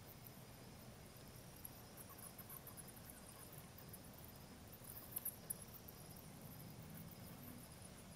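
Faint, high-pitched chirps and ticks of bats leaving a bat box, with a few louder ones about five seconds in, over a faint steady insect trill.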